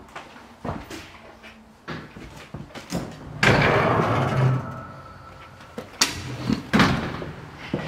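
Wooden louvered closet door being moved and shut: light knocks, a scraping, rattling rush lasting about a second halfway through, then two sharp knocks near the end.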